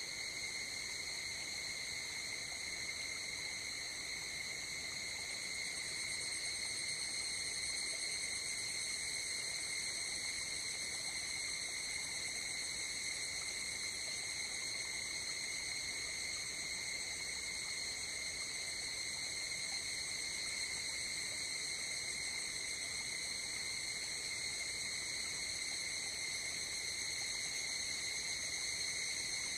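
Night insects, crickets or similar, chirring in a continuous high-pitched trill that never pauses.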